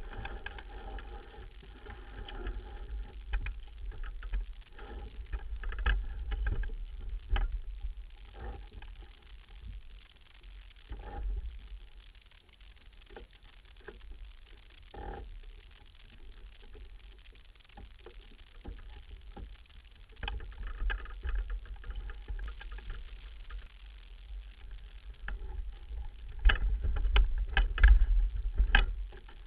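Sailboat under sail heard from a deck-mounted camera: uneven wind rumble on the microphone with scattered knocks and clicks from the boat's gear, heaviest near the end.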